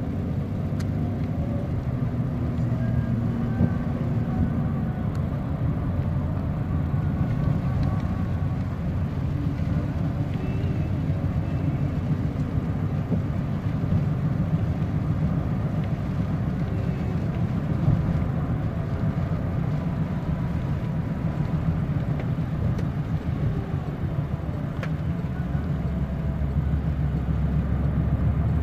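A car in motion, heard from inside the cabin: a steady low rumble of engine and road noise.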